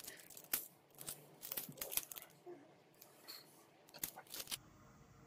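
Gold metallic foil transfer film crinkling and crackling as it is peeled off a UV-printed plate and handled: a run of irregular sharp crackles and rustles that stops about four and a half seconds in.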